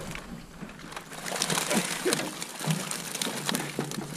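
Water splashing and streaming off a wire fish basket full of live crappie as it is hauled up out of the water, growing louder about a second in, with scattered clicks and slaps.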